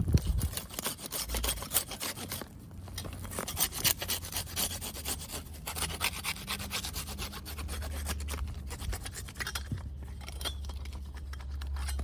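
A Silky folding pruning saw cutting through a wooden tree stump: a fast, rasping run of back-and-forth saw strokes with a brief pause about two and a half seconds in.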